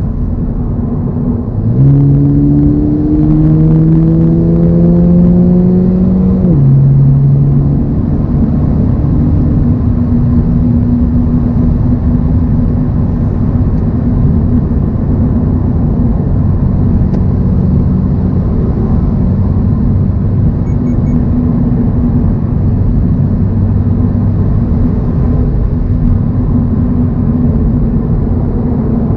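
Toyota GR86's 2.4-litre flat-four engine pulling hard through a gear with a rising note, then dropping in pitch at an upshift about six seconds in. After the shift the car cruises with a steady engine drone over road noise.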